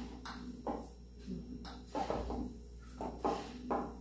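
Light knocks and taps from an aluminium baking pan being handled as dough balls are pressed into place in it, about six short knocks spread over a few seconds.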